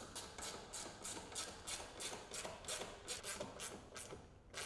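Hand ratchet wrench being worked back and forth to drive and tighten panel screws, a rapid run of ratcheting clicks about three to four strokes a second. The clicking stops about four seconds in, followed by one last sharp click near the end.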